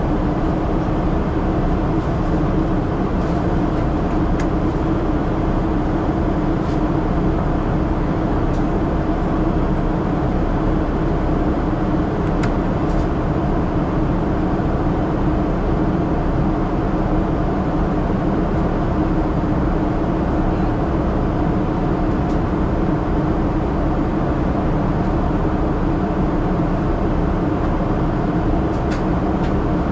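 Steady cabin noise of a Boeing 777-300ER in its climb after takeoff: the even rush of air and the drone of its GE90-115B engines heard from a window seat, with a steady low hum.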